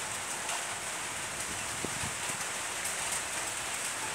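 A steady, even hiss, with a few faint ticks.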